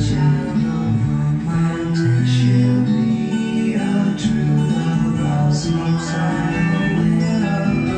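A vinyl record playing on an Audio Reflex DD-1979 turntable: guitar music with singing.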